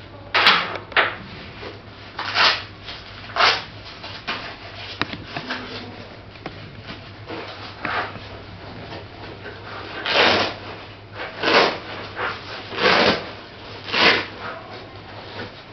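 Camera bag being handled: a dozen or so short, irregular rustling and scraping noises, each under half a second, over a low steady hum.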